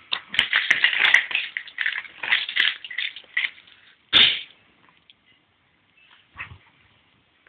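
A baby whimpering and fussing in a run of short cries over the first few seconds, then one louder cry a little after four seconds and a softer one near the end.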